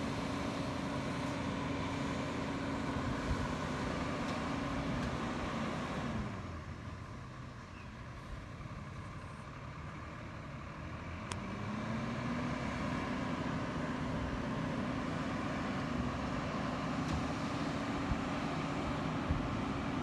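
Peterbilt 337 garbage truck with a Wayne Fury rear-loader body standing and running at raised engine speed, a steady drone from the engine and hydraulics. The drone winds down to idle about six seconds in, then climbs back up about twelve seconds in and holds, the pattern of the engine speeding up to run the packer.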